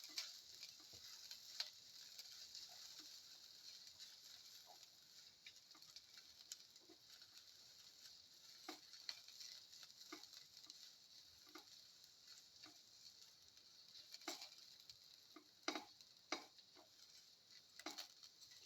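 Shallots, ginger and cumin seeds frying in oil in a pan with a faint, steady sizzle, while scattered clicks of a utensil stir them against the pan, a few sharper ones near the end.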